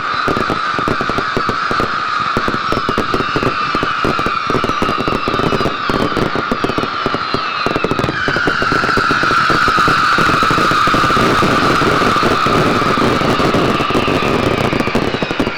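Fireworks going off continuously: many whistles screaming at once, their pitch slowly sliding down, over dense crackling. The whistling gets louder about eight seconds in.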